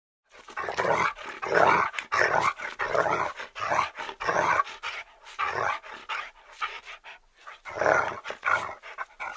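A dog barking and vocalizing in a quick, irregular series of short bursts.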